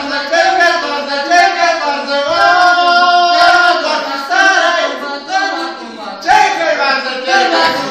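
Loud unaccompanied singing by a voice, holding long notes that slide between pitches.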